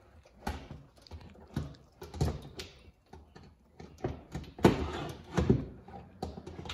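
JuiceBox EV charger's plastic housing knocking and clicking against its wall mounting plate as it is pressed and seated by gloved hands: a run of irregular taps and thumps, the loudest two a little past the middle.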